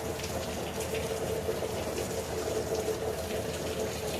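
Heavy rain pouring down steadily, with a steady hum underneath.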